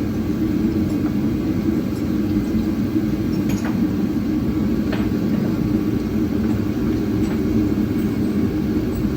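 A steady low rumble with a few faint light clicks about three and a half and five seconds in.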